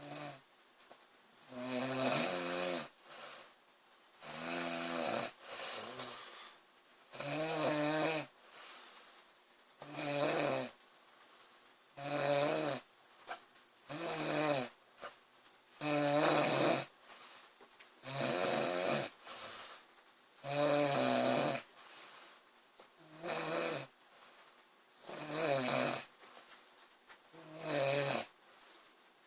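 A young woman snoring loudly in sleep, a pitched snore on each breath about every two and a half seconds, with fainter breath sounds between the snores.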